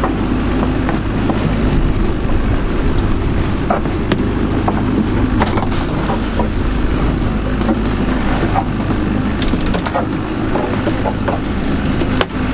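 Evinrude outboard motor running steadily as the small boat moves along, with wind and water rushing past. A few short knocks of gear on deck stand out now and then.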